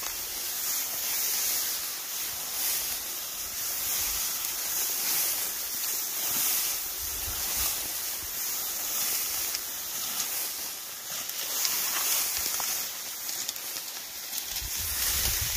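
Dry cattail stalks rustling and swishing against clothing and the camera as people push through them on foot, rising and falling with each stride. Gusts of wind rumble on the microphone near the end.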